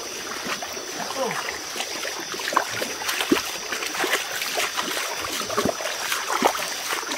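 Shallow stream water splashing and trickling around someone wading or moving in it, with many small plops and splashes, over a steady faint high tone.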